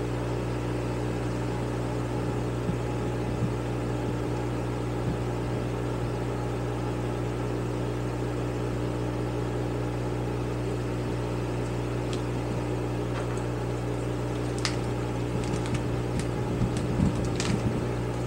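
Steady electric motor hum of a small fan running, with a few light clicks and taps from metal carburetor parts being handled, more of them near the end.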